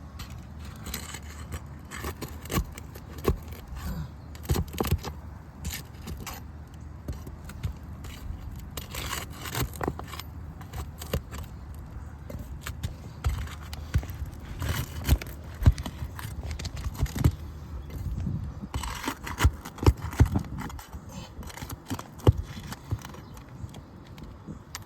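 Irregular scraping and sharp clicks of a tool working under 3-tab asphalt roof shingles, lifting the shingle and pulling out its nails.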